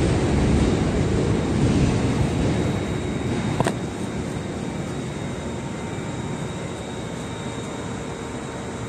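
Subway train running past the platform, its rumble fading away over the first few seconds. It is followed by a quieter steady hum with a faint tone. A single sharp click comes a few seconds in.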